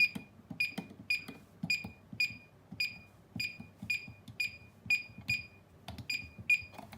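Keypad keys pressed one after another in its keyboard test mode. Each press gives a soft click and a short high beep, about fourteen beeps at roughly two a second.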